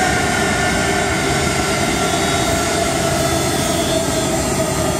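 Jet engines of a Boeing C-32 (military Boeing 757) taxiing close past: a steady rushing engine noise with a high whine whose pitch sags slightly.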